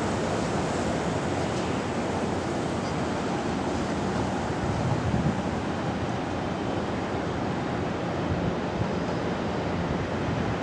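Steady distant roar of a twin-engine Airbus A320-family jet airliner landing and rolling out on the runway, mixed with wind gusting on the microphone.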